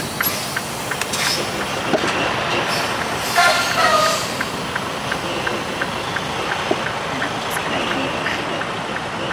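Semi truck's diesel engine running, heard from inside the cab while the truck reverses its trailer, with a steady fast ticking about three times a second. A brief louder sound stands out about three and a half seconds in.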